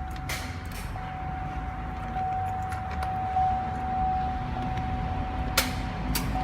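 A 2006 GMC Yukon XL Denali that won't start: sharp clicks, a pair shortly after the start and another pair near the end, over a steady high-pitched electrical whine.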